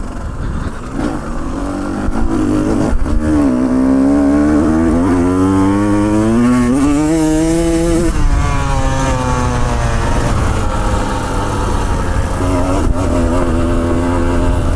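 Two-stroke motorcycle engine under way, its pitch rising steadily for about five seconds as it accelerates, then falling off sharply about eight seconds in, then running at a steadier pitch.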